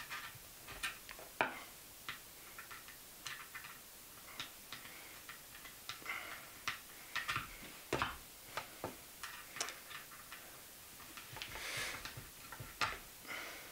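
Screwdriver tightening a Jubilee clip (worm-drive hose clip) on a plastic pipe: small irregular clicks as the worm screw turns against the band, with a brief scrape a little before the end.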